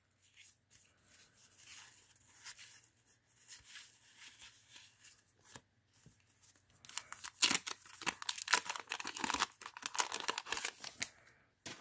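Wax-paper trading-card pack being handled and torn open: faint rustling at first, then a louder run of crackling and tearing from about seven seconds in.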